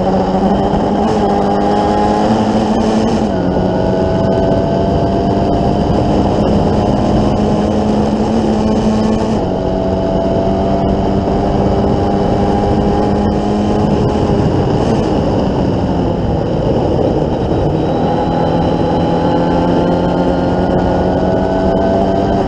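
Formula Ford 1600 race car's four-cylinder engine running hard at high revs, its pitch climbing slowly under acceleration and dropping suddenly at gear changes, with a falling slide as the driver lifts for a corner.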